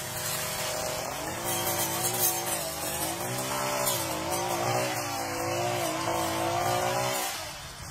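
Small brush cutter engine running hard, its pitch wavering up and down over and over as it works. It cuts in suddenly and stops suddenly about seven seconds in.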